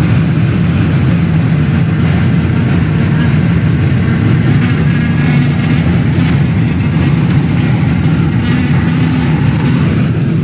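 Strong wind from a nearby tornado roaring and buffeting the microphone in a loud, steady rumble.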